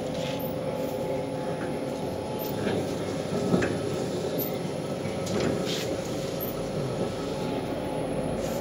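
Electra 100 stone melangeur running: its granite rollers turn on the granite base inside the rotating steel drum, a steady grinding rumble with scattered light clicks.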